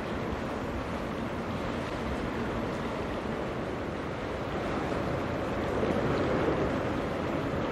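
Steady wash of wind and water, with no distinct engine note, swelling slightly about six seconds in.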